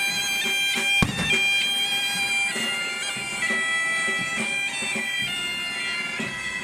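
Asturian bagpipe (gaita) playing a tune, stepping from note to note, with one sharp thump about a second in.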